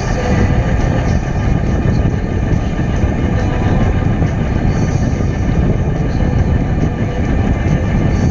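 Steady wind rush and road noise on the microphone of a camera riding a Juiced Scrambler electric bike at speed, heaviest in the low end, with a faint steady whine over it.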